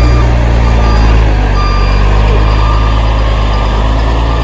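Heavy truck engine running loud and low, with a reversing alarm beeping at intervals over it.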